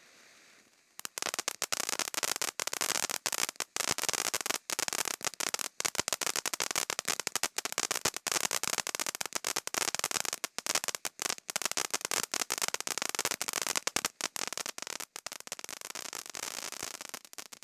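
Night Cat fireworks fountain spraying sparks, breaking into loud, dense crackling about a second in, with rapid sharp pops and brief gaps, easing a little near the end.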